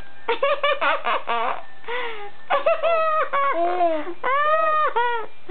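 Laughter in a quick run of short bursts, then a baby's high-pitched squeals, several drawn-out calls in a row that rise and fall in pitch.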